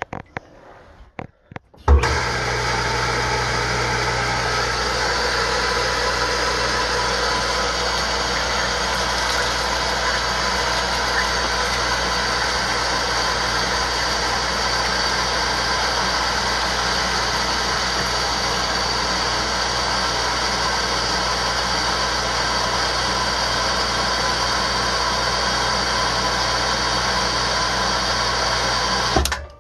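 Well pump kicking on under its pressure switch, running with a steady electric hum and a rush of water through the piping, then shutting off abruptly near the end as the pressure switch opens.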